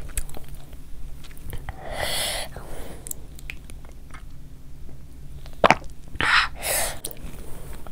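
Close-miked eating and drinking sounds: chewing and sipping lassi from a clay cup, with one sharp click and a loud breathy burst near the end.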